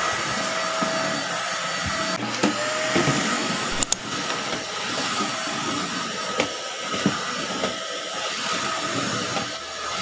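Deerma DX700 600-watt corded stick vacuum running steadily: a whooshing suction hiss with a faint steady motor whine as its floor brush is pushed over hardwood floor. A few faint clicks come through now and then.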